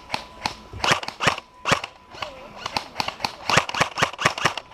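Airsoft guns firing a rapid, irregular string of single pops, about twenty in a few seconds: fire called onto an opposing player.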